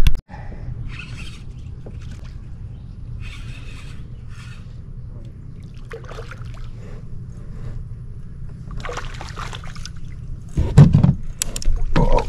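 Water splashing and trickling against a kayak's hull at intervals, over a low steady rumble. A few loud knocks and handling noises come near the end.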